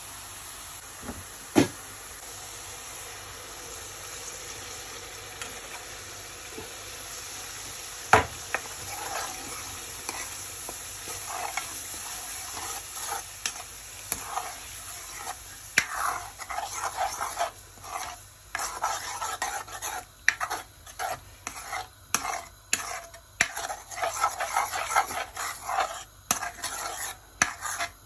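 Sarson ka saag sizzling in hot tadka oil in a pan as it is spooned in from the tin and stirred with a spatula. A few sharp knocks come in the first third, then a rapid run of scraping stirring strokes against the pan through the second half.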